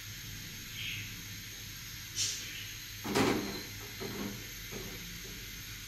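Steady hiss of a gas stove burner under a griddle, with a few light knocks and clatters of kitchenware as the bread and its cloth are handled, the loudest about three seconds in.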